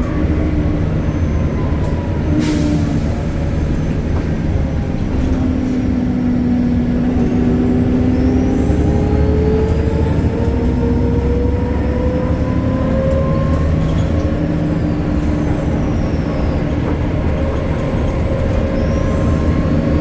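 BredaMenarini Avancity Plus city bus under way: its Deutz diesel engine runs with a steady low hum and its ZF automatic gearbox whines, the whine rising in pitch as the bus accelerates from about 7 to 14 seconds in, then falling away. A short hiss of air about 2.5 seconds in.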